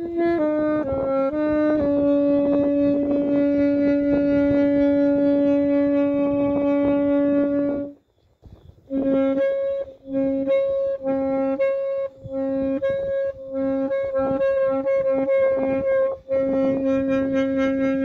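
Solo saxophone playing: a few short notes stepping down, then one long steady note held for about six seconds. After a brief break it repeats the same note in short detached notes, and near the end holds it long again.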